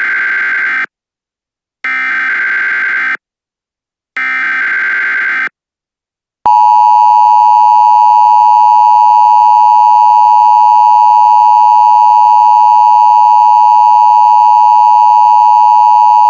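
Emergency Alert System signalling: the end of one and then two more short, harsh digital data bursts of the SAME header, about a second apart. They are followed by the EAS two-tone attention signal, a loud, steady dual-tone alarm that starts about six seconds in and runs about ten seconds.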